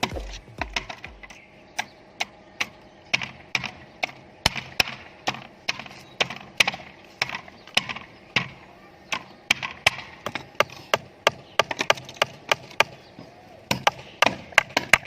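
Hammer driving nails into wooden formwork boards: sharp strikes at irregular intervals, a few a second, coming faster near the end.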